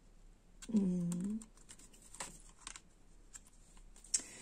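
A few faint, scattered clicks and taps of cards being handled on a table, with a short hummed 'mm' in a woman's voice about a second in.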